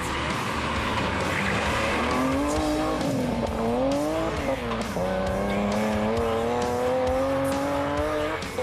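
Rally car engine revving hard as the car slides through a gravel corner. The pitch swings up and down, drops sharply about halfway through and then climbs steadily as the car accelerates away.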